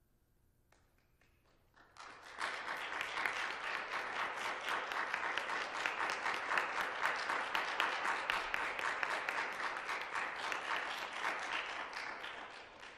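Audience applauding: dense clapping that starts suddenly about two seconds in after a short hush, holds steady, and fades away near the end.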